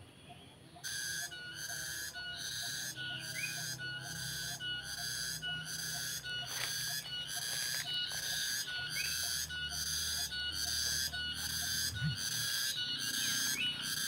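A singing insect calling in a loud, whistle-like pulsing rhythm of about two notes a second, starting about a second in. A few short rising chirps sound over it.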